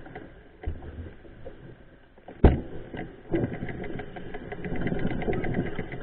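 Mountain bike rolling over a rough dirt trail, rattling and knocking over bumps, with one hard knock about two and a half seconds in. The rattling gets busier in the second half.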